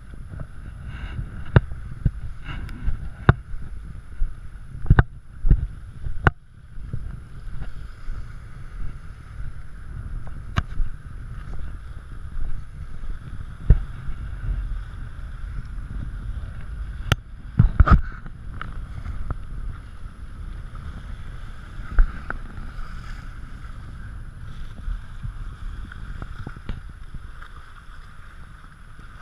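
Wind rumbling on the camera's microphone, with a dozen or so sharp knocks and taps scattered through, the loudest a quick cluster about eighteen seconds in.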